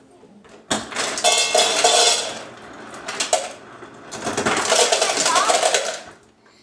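Ice cubes from a refrigerator's door ice dispenser clattering into a stainless steel bowl, in two runs of about a second and a half each, the metal bowl ringing under them.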